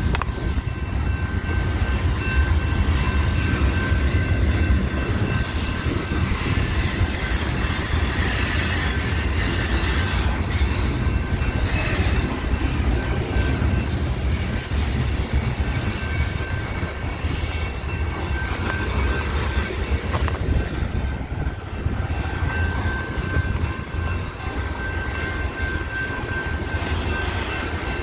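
A train rolling past at a rail junction, with a continuous low rumble and a steady high-pitched squeal of steel wheels on the rails.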